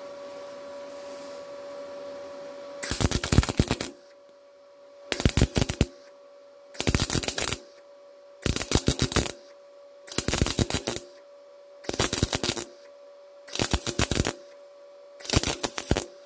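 MIG welder stitch-welding a lap joint in sheet steel, dab by dab: eight short bursts of arc crackle, each under a second and coming about every second and a half to two seconds, each dab laid partly on the one before to build the bead. A steady hum runs underneath throughout.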